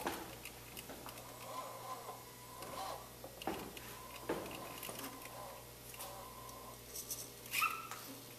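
Small electric drive motors of a student-built robot vehicle whining faintly as it creeps forward, with a couple of light clicks in the middle.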